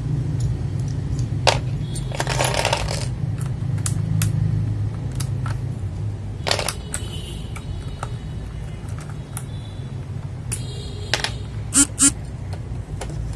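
Mechanical keyboard keys and keycaps clicking and clacking at scattered intervals, over a steady low hum. There is a brief metallic ring about six and a half seconds in and two sharp clacks close together near the end.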